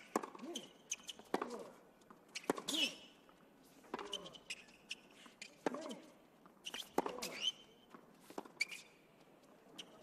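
Tennis rally on a hard court: sharp pops of racket strings hitting the ball and the ball bouncing on the court, traded back and forth about once a second, with short vocal grunts from the players on some shots.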